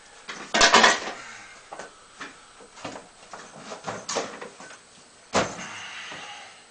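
A series of sharp knocks and clatter: a quick loud cluster about half a second in, scattered lighter clicks, then one sharp knock about five and a half seconds in.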